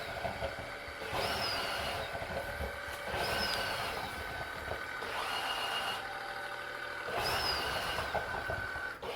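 Tineco Floor ONE S7 PRO wet-dry floor cleaner running its self-cleaning cycle on its dock, in the brush-roller cleaning stage. The machine runs steadily, and about every two seconds its sound swells into a hiss that opens with a short whistle falling in pitch.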